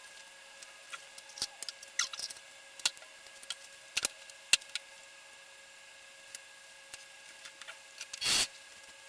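Scattered small clicks and taps of objects being handled, with a brief rustle about eight seconds in, over a faint steady hum.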